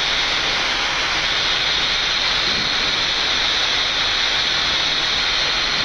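Steady rushing hiss of a Boeing 787 flight deck in climb, holding at an even level throughout.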